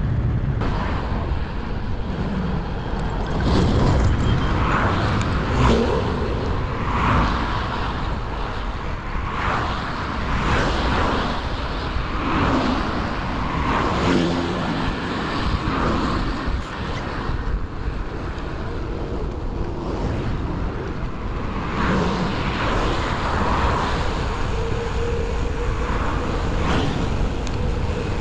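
Road traffic heard from a moving bicycle: cars passing close by, with wind rumbling on the microphone in uneven swells.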